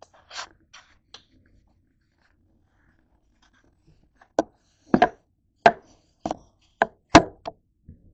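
Hard objects knocking and tapping: a few soft taps at the start, then a run of about seven sharp knocks roughly half a second apart in the second half.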